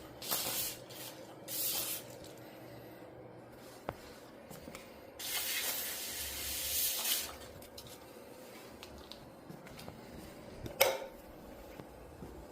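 Three bursts of hissing, like a spray being squeezed off, the last one about two seconds long, then a single sharp click near the end.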